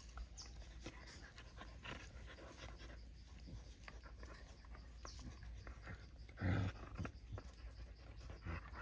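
Puppies nursing and jostling at their mother dog, making faint scattered clicks and scuffles. About six and a half seconds in there is one short, low dog growl.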